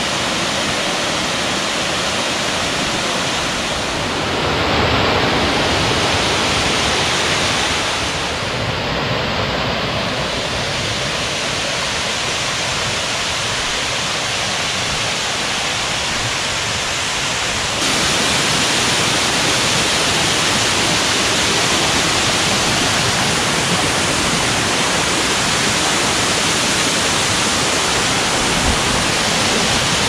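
Steady rushing water of forest waterfalls running full after heavy rain. The level steps up at cuts about 4, 8 and 18 seconds in, and is loudest over the last stretch, close to a wide cascade.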